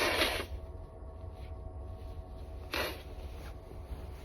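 The tail of a woman's forceful sneeze, cutting off about half a second in, then one short sharp inhale about three seconds in, over the steady low rumble of a moving train.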